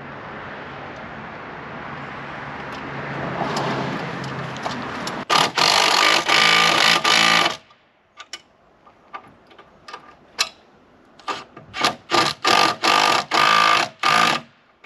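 A small electric motor runs with a high whine, first in one burst of about two seconds, then after a pause in a quick string of short on-off bursts. Before it, a steady low hum and hiss slowly grows louder.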